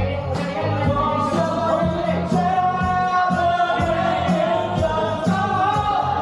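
Music with singing over a steady beat, the voices holding long notes.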